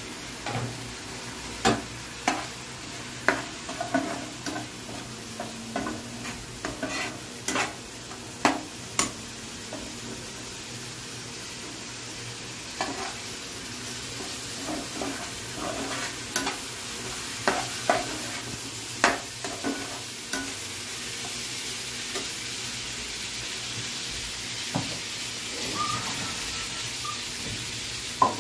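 Stainless-steel slotted spatula stirring chicken masala in a frying pan, knocking and scraping against the pan many times over the sizzle of frying. The clatter is thickest in the first ten seconds and again a little past the middle. The sizzling grows steadier and louder toward the end.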